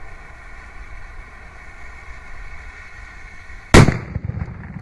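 A burning firecracker fuse hisses steadily, then a Polish firecracker (Polenböller) goes off with a single very loud bang near the end, followed by a low rumbling echo.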